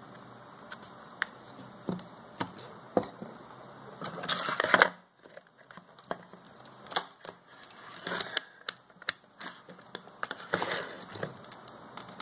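Handling noise from small-phone repair on a wooden desk: scattered clicks and taps of a plastic phone, its battery and small tools being pried and set down. A short scraping, crackling rustle about four seconds in is the loudest, and brief rustles follow around eight and ten seconds.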